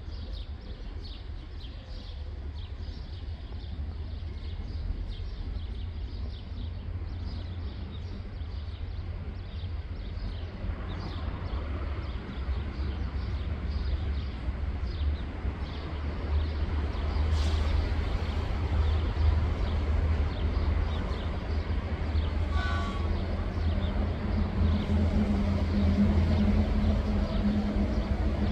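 Diesel locomotive's engine running with a deep steady rumble that grows louder, as the train draws nearer; a steadier engine tone joins it near the end.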